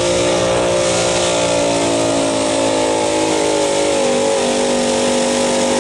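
A hot stock 4x4 pickup truck's engine running at full throttle under heavy load while pulling a weight-transfer sled. Its pitch holds steady, then sags slightly about four seconds in.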